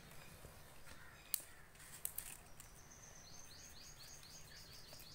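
A few sharp clicks of small scissors snipping twigs off a lemon branch, the loudest about a second and a half in. From about halfway a bird chirps rapidly in the background, about five short high notes a second.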